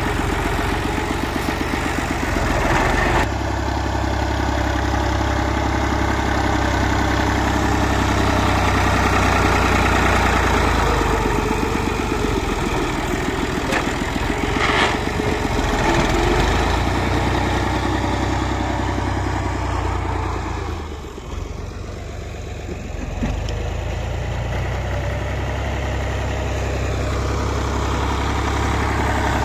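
Fiat 480 tractor's three-cylinder diesel engine running steadily while the tractor pushes soil with a front blade. The engine sound drops and thins for a few seconds a little past the middle, then comes back.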